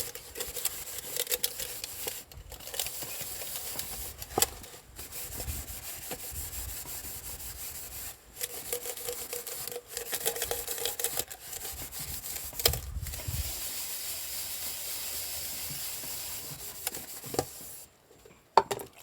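Dishes being scrubbed with a natural loofah sponge: steady rubbing and scraping, with a few sharp knocks of dishware.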